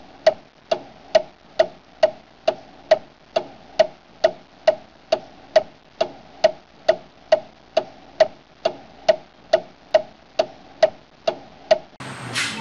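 A clock ticking steadily, a little over two ticks a second. Near the end it gives way to louder, rougher background noise with one sharp click.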